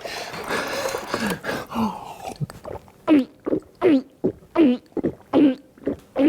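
A person drinking water greedily and noisily: slurping at first, then from about halfway in a run of loud, exaggerated throaty gulps, roughly one every 0.7 seconds.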